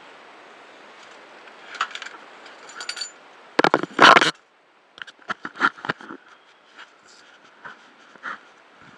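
Scuba gear being handled on a boat deck: scattered metal and plastic clinks, scrapes and knocks, with a loud pair of bumps about four seconds in, over a steady hiss at the start.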